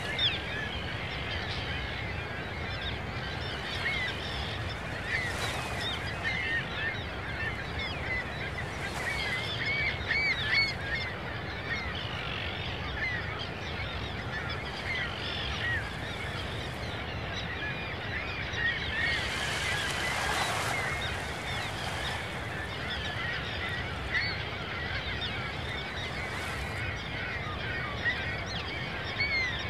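A flock of geese honking and calling continuously, many overlapping short calls, over a steady low rush of background water or wind, with a brief louder whoosh about twenty seconds in.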